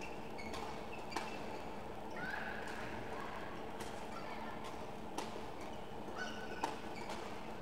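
Badminton rally sounds: a few sharp racket strikes on the shuttlecock and short squeaks of court shoes on the floor, over a steady hum.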